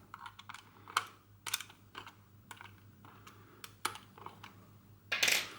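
A coin turning the screw of a super 8 movie camera's battery compartment lid: a run of small, irregular clicks and scrapes of metal on the camera body, with a brief louder scrape near the end.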